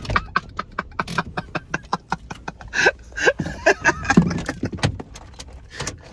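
Handling noise inside a car: a quick, irregular run of clicks, knocks and rustles as belongings are picked up and moved about.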